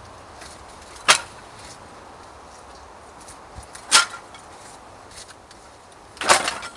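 Handfuls of dry split kindling sticks set down on the ground, giving three short wooden clatters: one about a second in, one near the middle, and a longer, rattling one near the end.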